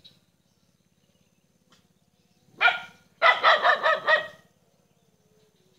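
A dog barking: one bark, then a quick run of barks a moment later.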